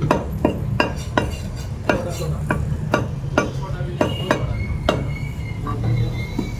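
Heavy meat cleaver chopping mutton on a wooden log chopping block: sharp chops about two a second, thinning out near the end. A steady low hum runs underneath.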